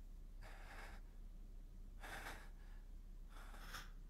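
Faint, heavy human breathing: three breathy gasps about a second and a half apart.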